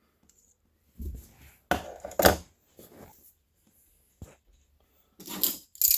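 Handling noise of homemade butterfly knives being picked up and laid out: a few irregular knocks, clacks and rustles, the loudest about two seconds in and a single sharp click a little past four seconds.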